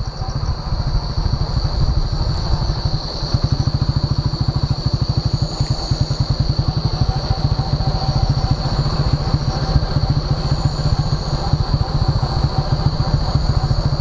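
Motorcycle engine running as the bike rides along, with a steady rapid firing pulse that gets a little louder about two seconds in. A steady high-pitched whine runs above it.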